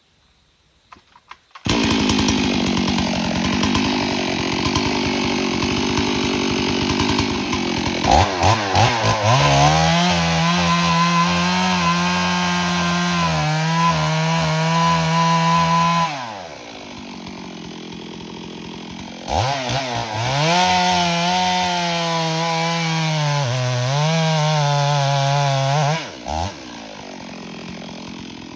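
Stihl MS 382 two-stroke chainsaw running loud: it comes in abruptly about two seconds in, is held at high revs for two long stretches with the pitch sagging and recovering, and drops back to a lower, quieter running speed between them and near the end.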